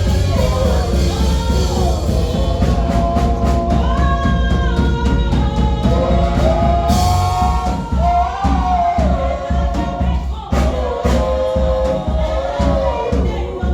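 Choir singing a gospel song with a live band: voices carrying the melody over heavy bass and a regular drum beat.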